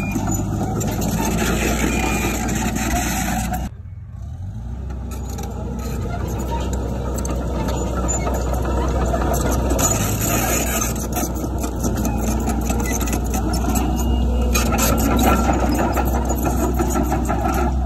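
Heavy construction machinery running: steady diesel engine noise with a deep rumble, dropping out abruptly for a moment about four seconds in before carrying on.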